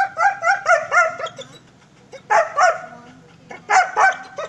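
German Shepherd barking in high, sharp barks: a fast run of about five a second, then after a pause of about a second two short clusters of barks.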